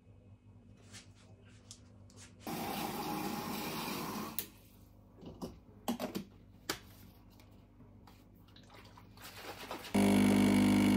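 Tap water runs into the sink for about two seconds, then come a few light knocks and clatters of things being handled. About ten seconds in, a home espresso machine's pump starts with a loud, steady buzzing hum as coffee pours into a mug.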